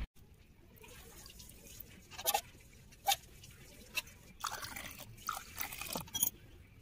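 Liquid poured from a steel vessel into glass tumblers holding mint paste: quiet trickling, with several short clicks spread through it.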